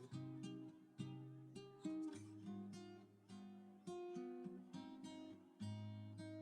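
Background music: acoustic guitar picking and strumming chords, a new note or chord about every half second to a second.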